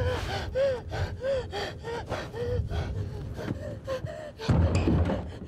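A person panting hard in fright, with short voiced gasps about two to three times a second. Near the end comes a louder burst of rustling noise.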